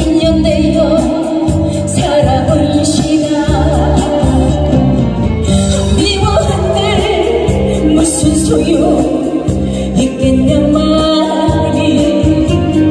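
A woman singing a Korean song live into a handheld microphone over instrumental accompaniment, amplified through the sound system.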